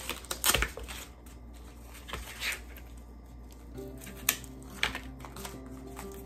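Wax paper rustling and crinkling in a few short bursts as it is peeled off slices of frozen shaved steak, with light handling clicks, over soft background music.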